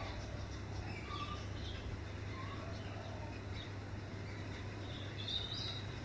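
Scattered short bird chirps in the background, with a louder call about five seconds in, over a steady low hum.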